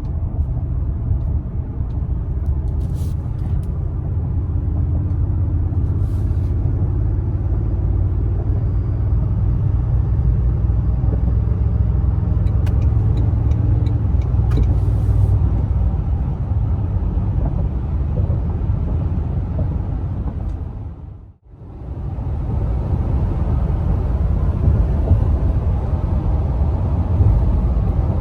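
Toyota pickup driving at freeway speed, a steady low rumble of road and drivetrain noise, on a newly replaced rear axle assembly. The rumble dips away sharply for a moment about three quarters through, then comes back unchanged.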